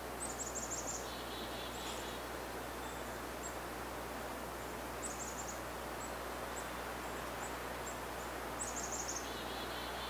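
Small songbird calls over a steady background hiss: three runs of quick high notes, two of them followed by a few lower repeated notes, with scattered single high chips between.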